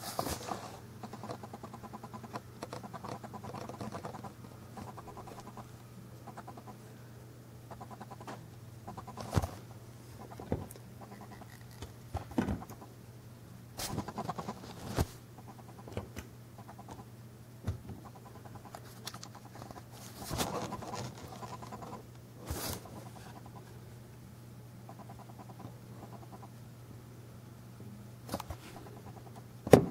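Scattered light clicks and taps from a 1/50 scale diecast concrete mixer model being handled and moved, over a steady low hum.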